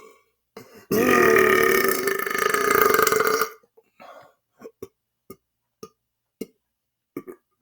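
A man's long, loud, deliberate burp, lasting about two and a half seconds and starting about a second in. It is followed by a string of short, faint clicks.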